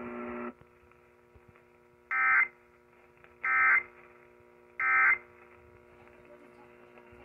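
Emergency Alert System end-of-message data bursts: three short digital tone bursts about 1.3 seconds apart, marking the end of a broadcast severe thunderstorm warning, over a faint steady hum.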